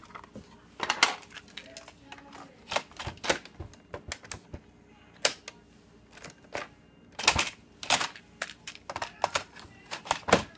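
Irregular sharp clicks and knocks close to the microphone, in quick clusters with short pauses: handling noise as a person in a faux-fur coat moves against the phone.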